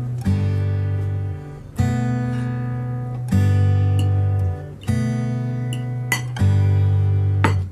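Background music: an acoustic guitar strumming, a new chord struck about every one and a half seconds and left to ring.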